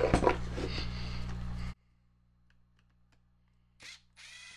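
Plastic chainsaw housing handled and turned over with clicks and knocks over a steady low hum, which cuts off suddenly a little under two seconds in. Near the end a cordless driver whirs briefly, backing out a screw of the motor's brush holder.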